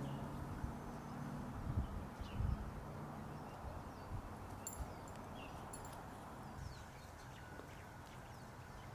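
Quiet outdoor yard ambience. A low hum and a couple of soft knocks fade out in the first few seconds, and a few short, high bird chirps come about halfway through.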